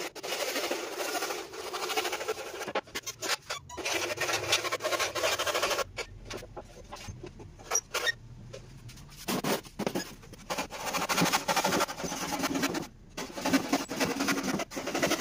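Hand saw cutting a wooden board, in three runs of quick back-and-forth strokes with short pauses between them, the last and longest run starting a little past halfway.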